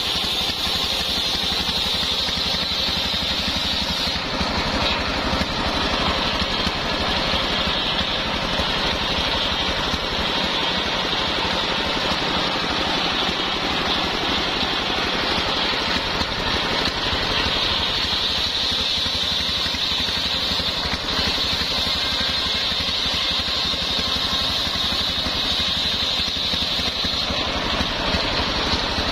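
Homemade table circular saw driven by a small stationary engine, ripping sengon wood: the engine runs steadily under load while the blade gives a high cutting whine, strongest at the start and through the second half.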